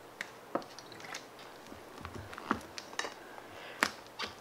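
Clear plastic utensil stirring and scraping a wet white-glue slime mixture on a paper plate as activator is mixed in: soft squelches and irregular small clicks.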